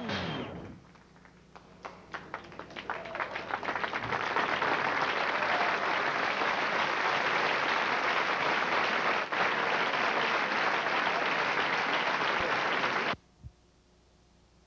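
Audience applause after a song ends: separate claps start about two seconds in, quickly build into full steady applause, then cut off abruptly near the end, leaving faint hiss.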